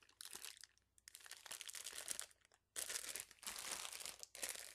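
Plastic bag of Hershey's Kisses crinkling as it is handled, in bursts with two short pauses.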